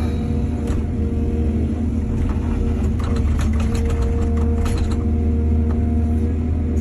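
Heavy diesel engine of an excavator running steadily with a deep rumble. A run of sharp clatters and knocks comes in the middle, typical of the bucket working soil and stones into a truck.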